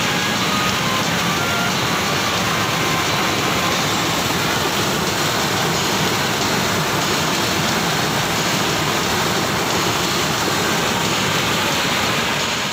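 Stream water rushing and splashing as it cascades over rock ledges, a steady, even rush.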